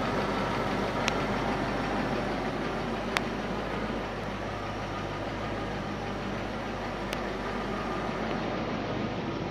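Range Rover Classic's Rover V8 petrol engine running steadily at idle, shortly after its first start in 11 years. Three brief sharp clicks stand out above it, about one, three and seven seconds in.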